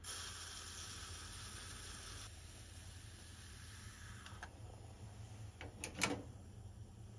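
Bialetti Moka Express stovetop coffee maker brewing with a steady hiss as coffee rises out of the centre column into the upper chamber. Small metal clicks follow as the hinged lid is handled, then the aluminium lid clacks shut about six seconds in, the loudest sound.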